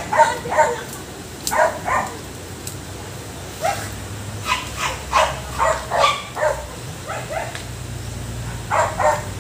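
A dog barking: short barks repeated at uneven intervals, several in quick succession around the middle.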